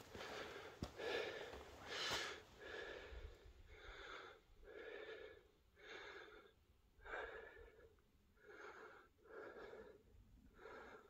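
A person breathing hard and rhythmically close to the microphone, about one breath a second, like someone out of breath from walking.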